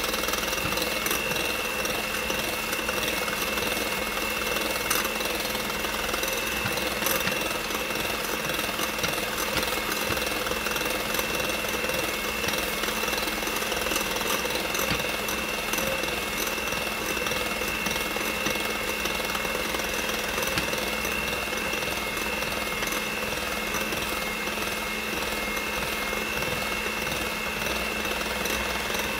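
Hamilton Beach electric hand mixer running steadily with a high whine, its beaters whipping eggs in a glass bowl, with a few light ticks.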